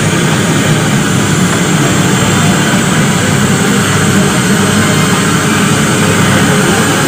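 AgustaWestland AW109 twin-turbine helicopter running on the ground with its main rotor turning, a loud, steady mix of turbine whine and rotor noise.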